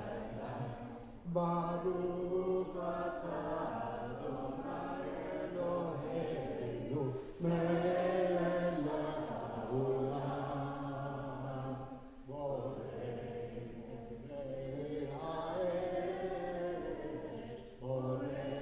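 A man chanting a Jewish liturgical melody into a microphone, in phrases a few seconds long with held notes and short breaks between them.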